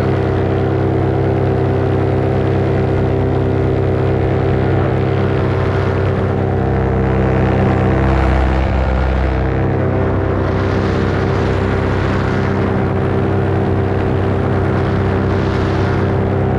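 Paramotor engine and propeller running at a steady throttle in flight, a continuous drone that holds one pitch. A low rumble swells briefly in the middle.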